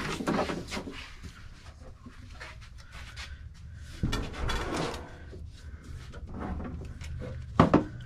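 Wooden sewing machine cabinet being opened by hand: its hinged top leaf is folded over and the machine is raised out of the table, with wooden knocks and scraping. There is a sharp knock about four seconds in and louder knocks near the end.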